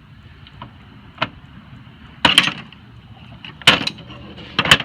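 Four sharp knocks and clatters: one small one about a second in, then louder clusters about two, three and a half and four and a half seconds in. They fit a plastic Sortimo L-Boxx toolbox and its printed mounting clip being handled and set back in place.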